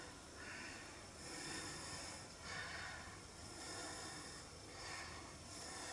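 Faint breathing close to the microphone, soft swells of breath noise about once a second over a low hiss.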